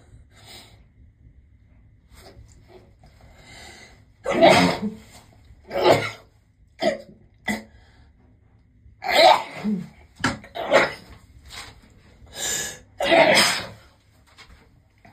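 A woman sneezing several times in a row, loud sneezes with short in-breaths between them, starting about four seconds in after a few quiet breaths.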